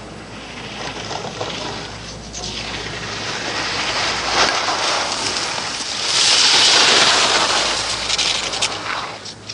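Giant slalom skis carving turns on hard-packed snow: a run of scraping swishes, one per turn, growing louder as the skier nears. The loudest, longest scrape comes about six to seven and a half seconds in, as the skier passes close by.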